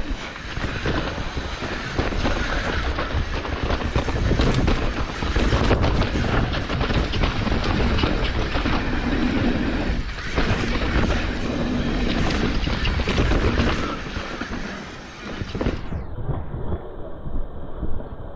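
Hardtail mountain bike rattling steadily over a rough trail: tyre noise on dirt and rock, with a continuous clatter of knocks and chain and frame rattle.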